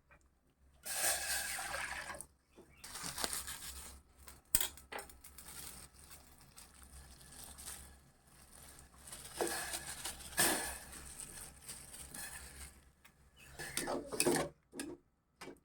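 Kitchen sink sounds: water running from a tap in several short spells, with clinks and knocks of bowls and utensils in between.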